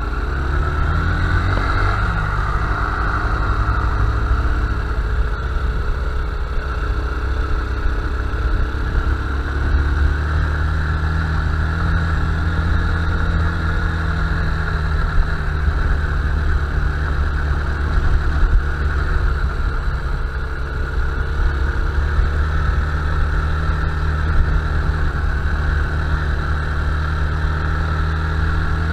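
Honda Bros 160 single-cylinder motorcycle engine running at a steady cruise under way, its pitch rising slightly in the first couple of seconds and then holding level, with a heavy low rumble underneath.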